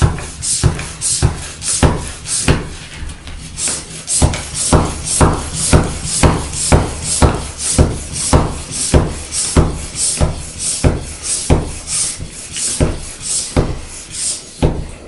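Floor pump inflating a bicycle inner tube toward 70 PSI: rhythmic pump strokes, each a short rush of air, about two a second.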